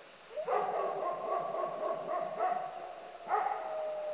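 Livestock guardian dog giving alarm barks at coyotes: a sharp bark about half a second in runs into a long held howl, and a second bark a little after three seconds is followed by another long steady howl.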